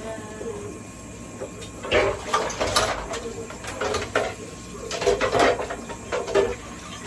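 Kitchen handling noises: a utensil scraping and clinking against cookware or a plate in several short, irregular clattering bursts, starting about two seconds in, over a steady low background hum.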